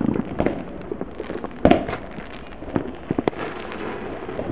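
Distant consumer fireworks going off across a town: scattered bangs and pops with some crackle between them, the loudest about one and a half seconds in.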